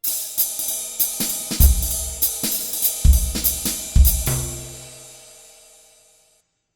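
Short outro music on drum kit, with cymbal and hi-hat hits and three heavy bass-drum hits, ending on a held chord that fades out.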